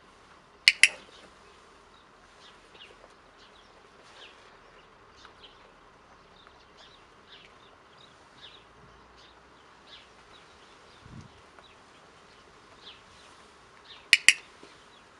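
Training clicker clicked twice, about a second in and near the end, each a sharp double click, marking the rabbit's jump over the foot in clicker training. Faint short chirps in the background between the clicks.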